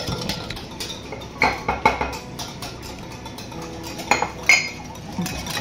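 A wire whisk stirring a liquid cake batter in a glass bowl, with sharp clinks of metal on glass in two clusters: about a second and a half in, and again about four seconds in.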